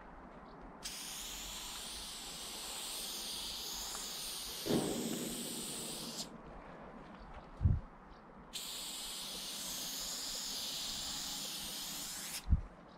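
Aerosol spray-paint can hissing in two long bursts of about five and four seconds, with a short low thump in the gap between them and another just after the second burst.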